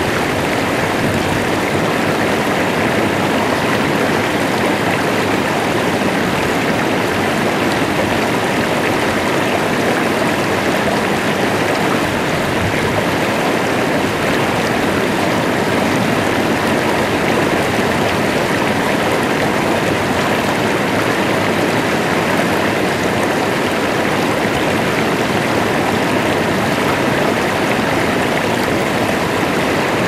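Shallow stream rushing over rocks and riffles: a steady, even rush of water.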